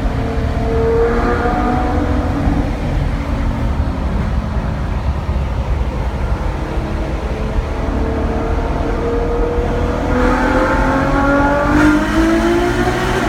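Ferrari FF's V12 engine running over a low rumble; over the last few seconds its pitch rises steadily and it grows louder as the car accelerates.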